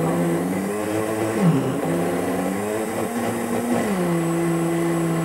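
Kitchen blender motor running, churning soaked newspaper and water into paper pulp. Its pitch dips briefly about a second and a half in, rises a little, then drops to a steady lower hum near the end.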